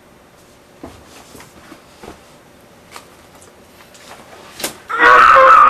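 Faint rustling, then near the end a woman breaks into a loud, high, drawn-out wail.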